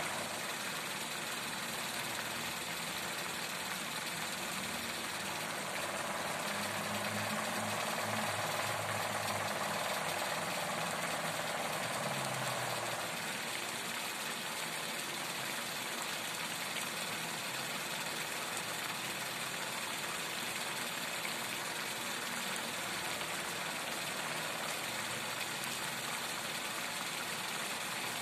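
Banana heart simmering in coconut milk in a wok: a steady bubbling hiss. A low engine-like hum joins for several seconds in the middle and then fades.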